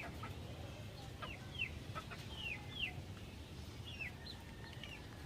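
Faint, short, high-pitched falling peeps from chicken chicks, about six in all, mostly in pairs, over a steady low background rumble.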